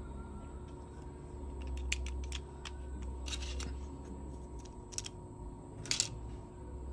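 Short plastic clicks and taps as a Samsung phone's plastic motherboard cover is set onto the chassis and pressed into place. They begin about two seconds in, come as a quick cluster around the middle, and the sharpest click is near the end. A steady low hum runs underneath.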